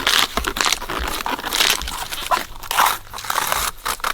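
Banana plant stem being peeled by hand to reach its core: irregular crisp crunching and tearing as the fibrous outer sheaths are stripped away.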